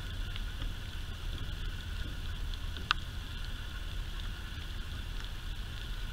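Steady outdoor background noise: a low rumble under a steady high hum, with one short, sharp click about three seconds in.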